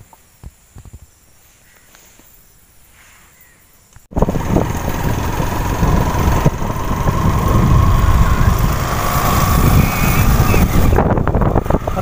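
A few seconds of low background with faint clicks, then, about four seconds in, a sudden cut to a motorcycle running at road speed with loud wind rushing over the microphone.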